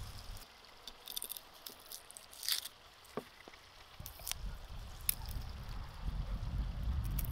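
Faint papery crackles and a few small clicks of garlic cloves being peeled by hand. Near the end, a low rumble of wind on the microphone comes up.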